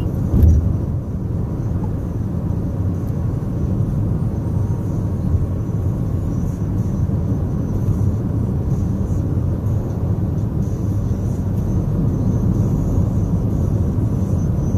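Steady low road and tyre rumble with engine noise, heard inside a Honda Civic's cabin while cruising, with a brief thump about half a second in.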